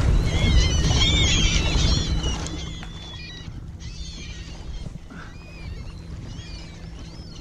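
A flock of seabirds working over a feeding frenzy of fish, calling in many short, overlapping high cries. Under them a loud low rumble drops away about two seconds in.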